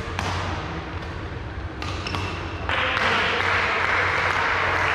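Badminton play in a sports hall: sharp racket hits on the shuttlecock and short shoe squeaks on the court floor, echoing in the hall. A louder stretch of hissing noise fills the second half.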